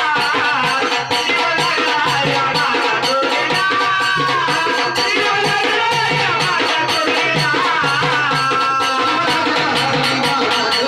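Marathi folk devotional song music: a wavering melody line over a steady, fast rhythm of hand percussion.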